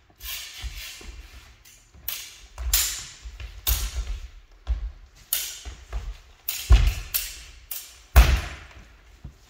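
Fencing footwork thudding on a wooden sports-hall floor, mixed with sharp hits and swishes of spadroon blades during a bout, in an irregular run of about a dozen; the two heaviest thuds come near the end.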